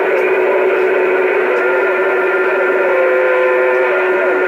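CB radio receiver on AM hissing with band static through its speaker, with a steady whistle tone and fainter wavering tones sliding up and down over it.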